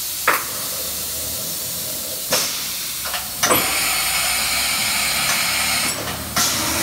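Chevalier CNC vertical machining center running a program, its air blast hissing steadily, with a few sharp clicks from the machine. About halfway through, a high-pitched whine joins the hiss and stops about a second before the end.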